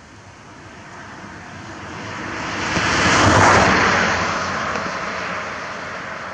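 A motor vehicle passing by, its rushing noise swelling to a peak about three and a half seconds in and then fading away.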